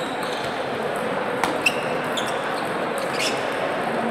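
Sharp clicks of table tennis balls striking tables and bats, echoing in a large sports hall, over a steady background of hall noise and distant voices. The loudest are two clicks close together about a second and a half in, with another just after three seconds.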